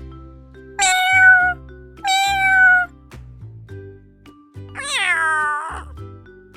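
Domestic cat meowing three times, the third call longer and falling in pitch, over background music.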